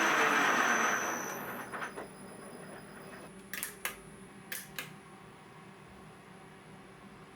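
A CNC-converted milling machine's motor running, then winding down and stopping over the first two seconds, leaving a faint steady hum. Four sharp clicks follow in two quick pairs around the middle.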